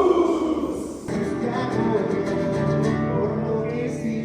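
Music with a plucked guitar and a singing voice.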